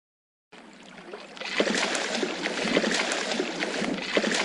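Water splashing and gurgling with short bubbly pops, starting faintly about half a second in and growing louder about a second later.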